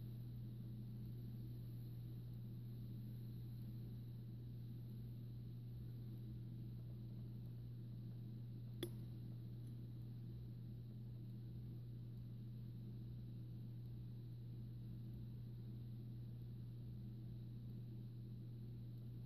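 A steady low hum with one faint click about nine seconds in.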